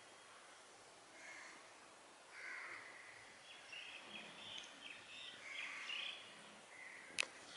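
Faint background with birds chirping now and then, busiest about halfway through, and a single sharp click near the end.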